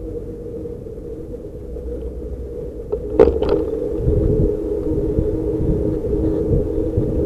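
Road rumble and wind from riding a bicycle along a city bike lane next to car traffic, with a steady hum under it. A sharp knock comes a little after three seconds in, and the rumble grows louder from then on.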